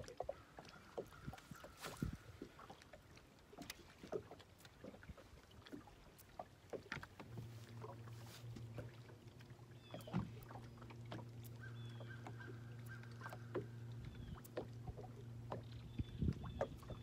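Bow-mounted trolling motor on a bass boat starts a steady low hum about seven seconds in and keeps running. Scattered clicks and taps from the deck and fishing tackle sound throughout.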